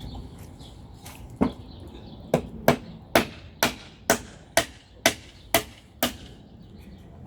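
Hammer blows: one strike, then about a second later a steady run of about nine strikes, a little over two a second.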